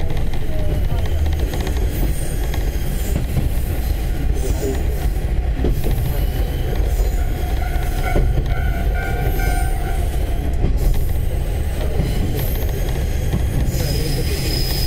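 Heard from inside a moving KiHa 30 / KiHa 37 diesel railcar pair: a steady rumble of the diesel engines and the wheels on the rails. A few faint high tones come in about eight seconds in and again near the end.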